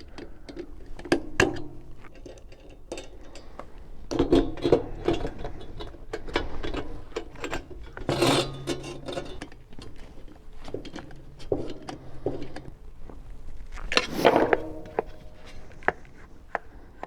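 Irregular clicks, knocks and clatter of a bathroom exhaust fan's plastic squirrel-cage wheel and motor being handled and fitted, with a few louder knocks that ring briefly.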